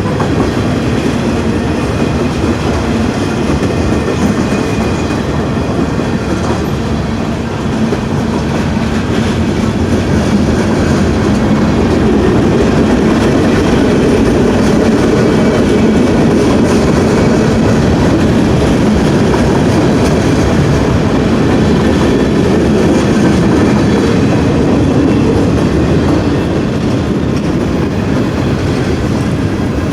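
A train's cars rolling past over the crossing, wheels clacking over the rail joints in a steady loud rumble that swells a little about twelve seconds in.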